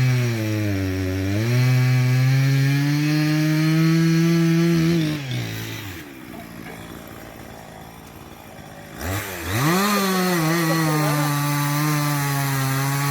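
Two-stroke chainsaw running at high revs on poplar wood, its pitch dipping briefly about a second in, then falling away until the engine stops about five seconds in. After about three quieter seconds it starts again, climbing quickly and settling into a steady high-revving run.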